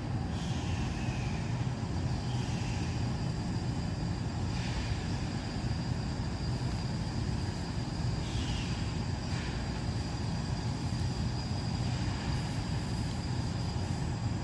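Wood stove fire burning during secondary (gasification) combustion, a steady low rumble of the draft and flames, with a few faint brief chirps and clicks over it.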